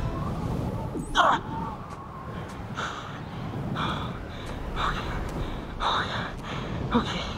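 A young man panting hard from exertion, one sharp, heavy breath about every second, with a short falling vocal gasp about a second in. He mutters a breathy "okay, oh my God" near the end.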